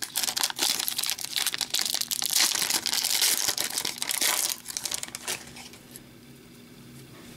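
Plastic wrapper of a hockey card pack crinkling as it is handled and opened. The crinkling falls quiet about five seconds in.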